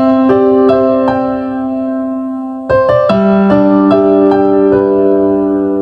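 Intro music on a gentle keyboard: single notes picked out over a held chord, then a new chord struck about two and a half seconds in and left to ring.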